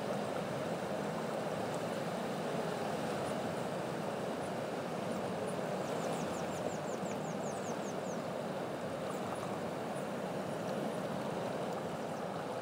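Steady rushing background noise, with a quick series of about a dozen short, high, falling chirps about six seconds in.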